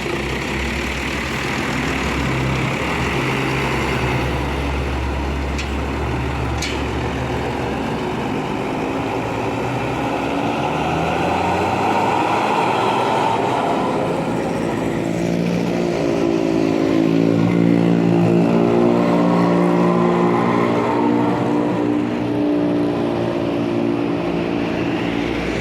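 A tour bus engine runs, then partway through a telolet basuri horn plays a tune of short held notes stepping up and down in pitch. The tune gets louder toward the end.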